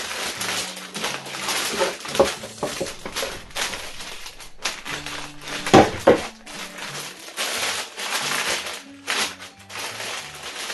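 Plastic Lego parts bags crinkling and crackling as they are handled and torn open by hand, with a sharp crackle a little past halfway. Background music with held low notes plays underneath.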